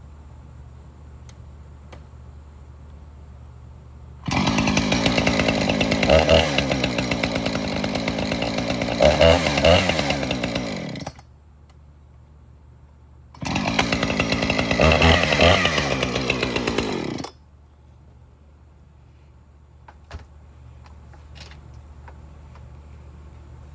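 Small gas engine of a handheld power tool (string trimmer or chainsaw) running and revving up and down in two runs of about seven and four seconds, each starting and stopping abruptly, a test after the tool sat out a storm.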